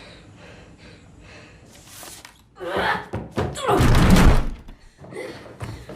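A heavy thud about four seconds in, deep and lasting about a second, after a lighter knock a moment before, over faint film music.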